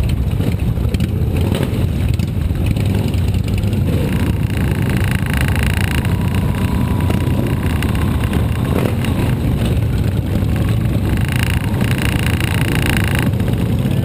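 Motorcycle engines running steadily at low road speed, heard on board one of a group of cruiser and touring motorcycles.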